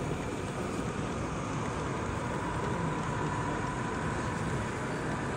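Steady background din of a large exhibition hall, with a faint thin tone heard through the middle.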